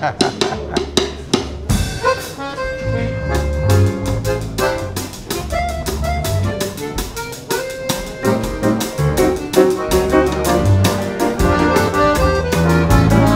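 Small band playing instrumental music: a drum kit keeps a steady rhythm with cymbals, under held accordion notes and a moving bass line.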